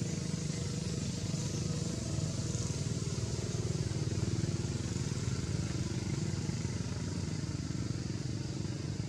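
A steady low engine-like rumble with a fine rapid pulse, under a continuous high hiss.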